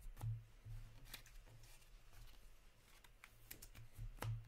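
Hockey trading cards being flicked and sorted by hand, a few scattered light card slaps and rustles, over a faint steady low hum.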